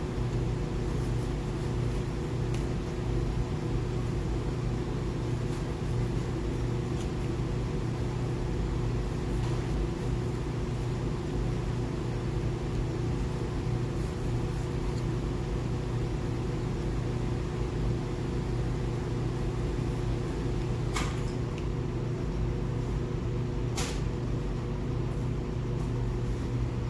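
Steady low mechanical hum with a few faint steady tones above it, and two sharp clicks near the end.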